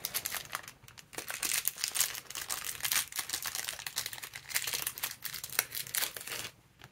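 Small clear plastic zip-lock bags crinkling and rustling as fingers handle them and pull one open. The crinkling stops suddenly near the end.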